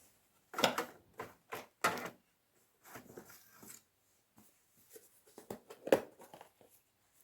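Small storage containers and sewing supplies being handled: a series of sharp clicks and short rustles, several close together in the first two seconds and a louder click about six seconds in.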